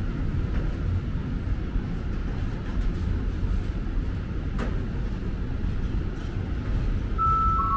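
Steady low rumble of a train, then near the end a two-note falling chime from the station's public-address system, the signal that a platform announcement is about to follow.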